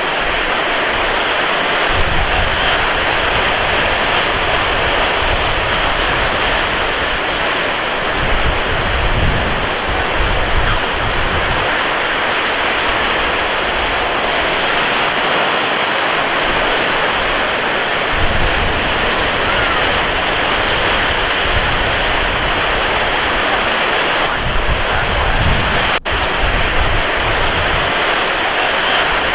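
Wind and surf on a beach: a steady rushing wash of noise, with gusts buffeting the microphone in low bursts that come and go several times. A split-second dropout breaks it once near the end.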